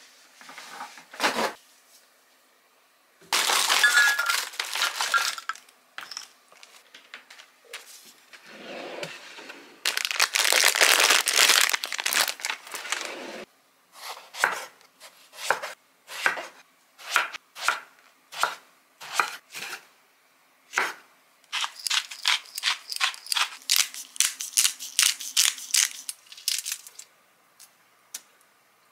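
Kitchen prep sounds: two long stretches of rustling, then a chef's knife cutting a small eggplant on a wooden cutting board, first in single strokes about one to two a second, then in quick chopping strokes near the end.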